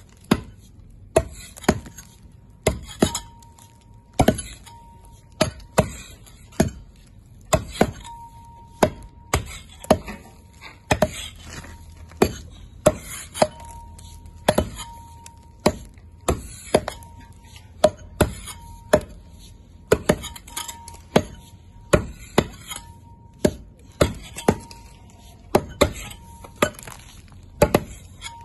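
Steel pickaxes striking a solid sandstone block over and over, about one and a half sharp blows a second in an uneven rhythm, each chipping stone from the surface, with a faint high ring hanging after many of them.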